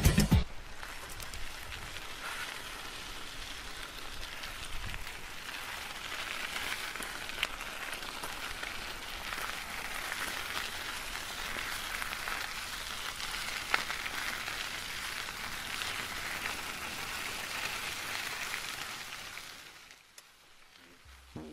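Steady crackling hiss of dry reeds and grass rustling in the wind, with a few faint clicks; it fades out near the end.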